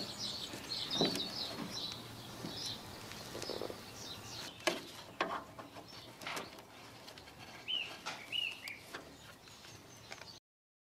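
Birds chirping, with a few sharp metallic clicks and knocks from an adjustable spanner working a rusted, rounded bolt; the clicks are the loudest sounds. The sound cuts off abruptly near the end.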